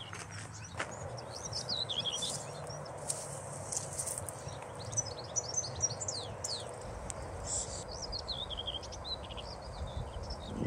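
Small songbirds singing from the scrub: runs of quick, high chirps and twittering trills, one after another, over a steady outdoor hiss, with some low rumble coming in during the second half.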